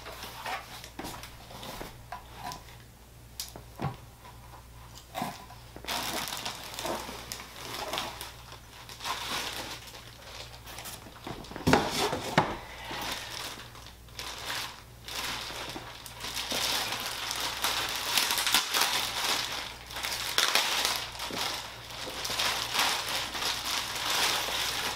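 Plastic wrapping crinkling and rustling as a camera bag is lifted out of a cardboard box and unwrapped, with cardboard flaps being handled at first. The crinkling gets louder and denser in the second half.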